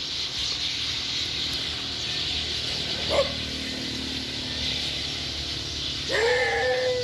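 Steady high chatter, the massed chirping of a large flock of sparrows. A short animal call comes about three seconds in, and a longer held animal call near the end.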